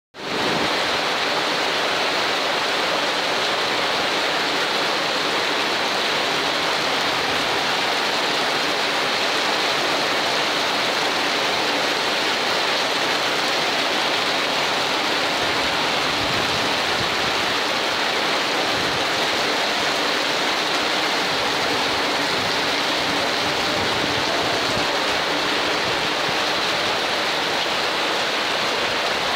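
Heavy rain falling on corrugated metal roofing, together with floodwater flowing fast down a street: one loud, constant hiss.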